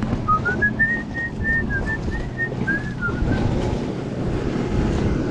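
A run of about fifteen short, clear whistled notes over about three seconds, climbing in pitch, holding, then dropping, over steady wind noise.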